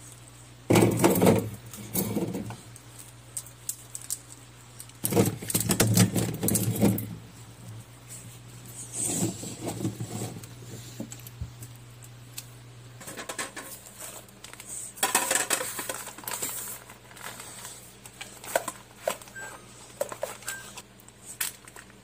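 Groceries being put into a refrigerator: bottles and plastic packets knocking and rustling against the shelves and wire bottle rack in several loud bursts with smaller clicks between. A steady low hum runs underneath and weakens about halfway through.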